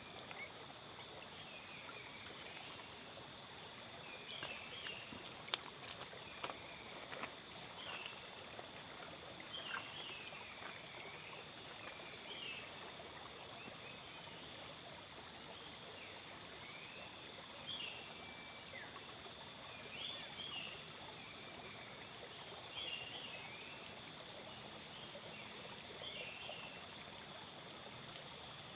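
Outdoor insect chorus: one insect keeps up a steady high-pitched trill while another chirps in short runs of rapid pulses every few seconds, with scattered short bird chirps and a couple of faint clicks about five seconds in.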